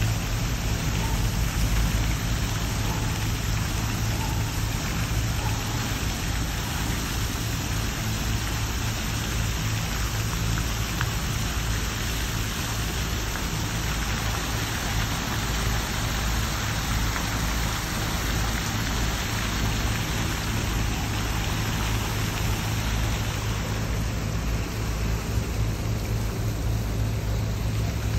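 Water from a large public fountain splashing steadily into its pool, an even rushing hiss, with a steady low hum underneath.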